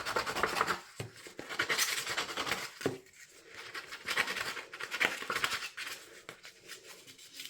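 Scissor blade scraped along the edge of patterned paper to rough it up for a tattered look, in repeated rasping strokes.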